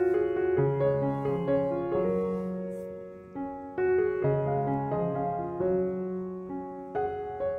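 Background piano music: a slow melody of sustained notes over low bass notes, with a brief dip about three and a half seconds in.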